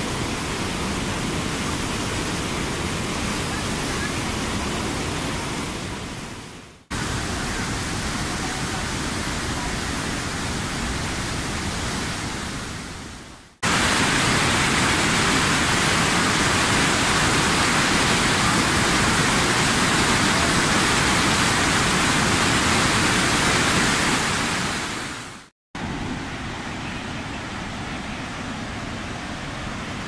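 Rhine Falls: a steady, dense rush of falling and churning water, heard in several cuts. Two of them fade out, one about a quarter and one nearly halfway through. The sound is loudest for about ten seconds in the middle, then drops suddenly to a quieter stretch near the end.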